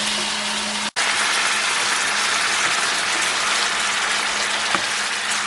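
Garlic sizzling in hot oil in a frying pan, a steady hiss, broken by an instant of silence about a second in.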